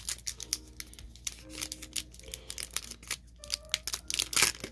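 Baseball trading cards being handled and a pack wrapper being peeled open by hand: a quick, uneven run of small clicks and crinkles. Faint music plays underneath.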